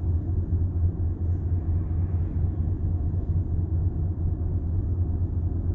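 Steady low tyre and road rumble inside a moving car's cabin.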